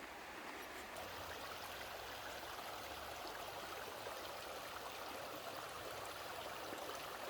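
Small creek flowing over rocks: a steady, even rush of running water.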